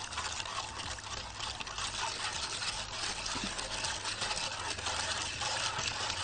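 A whisk stirring a cold mix of water, starch, sugar and strawberry jelly powder in a pot, a steady swishing and scraping with the undissolved sugar crunching against the pot.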